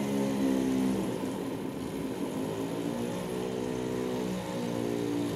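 Small rotary engine on a test stand, fuelled with biodiesel, being turned by a hand-held electric starter pressed to its shaft: a steady mechanical whir whose pitch falls in the first second, then climbs and sags again around the middle.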